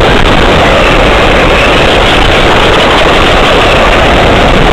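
Blazing Star RC car driving on asphalt, heard from a camera on its own chassis: a loud, steady rush of motor, drivetrain and tyre noise.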